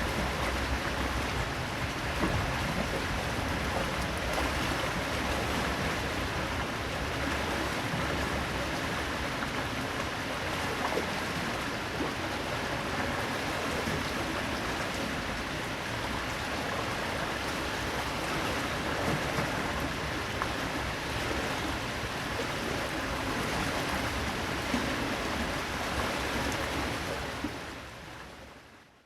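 Medium-size waterfall splashing, a steady rush of falling water that fades out near the end.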